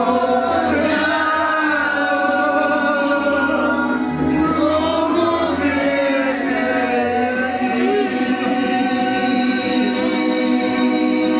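Choir singing with vibrato over held keyboard chords.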